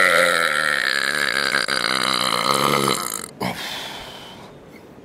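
A man's long, loud belch after drinking malt liquor. It ends about three seconds in and is followed by a short breath.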